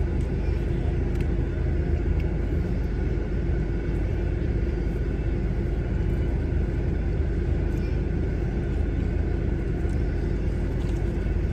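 A car running, heard from inside: a steady low rumble with a constant hum and no change in pitch.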